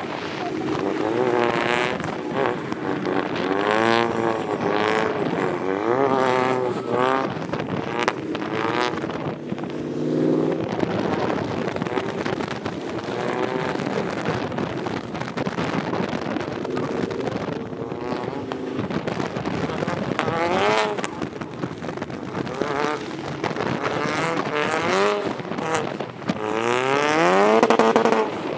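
Ford Mustang EcoBoost's engine revving hard, its pitch climbing and dropping again and again as it is driven in a drift, with the longest climb near the end.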